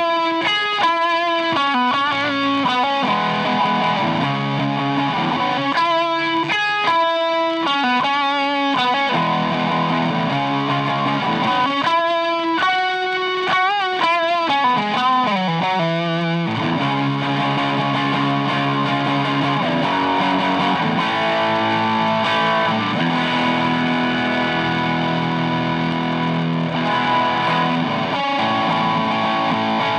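Electric guitar played through a DOD Juice Box FX51 overdrive pedal, giving an overdriven tone. It plays choppy riffs with wavering, bent notes in the first half, then lets held chords ring out from about halfway.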